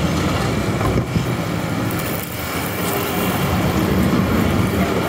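Steady street traffic noise: vehicle engines running with a low hum.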